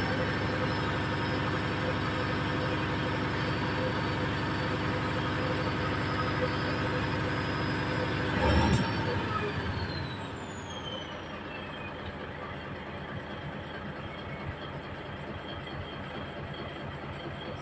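Mitsubishi Fuso 6M70 straight-six diesel idling while its compressor builds air pressure, then a short loud blast of air about halfway through as the air dryer purges, after which the running is quieter.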